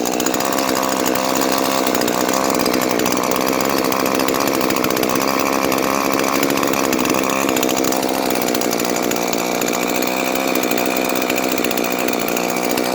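Husqvarna 338XPT two-stroke top-handle chainsaw running steadily at an even pitch, showing that the saw starts and runs.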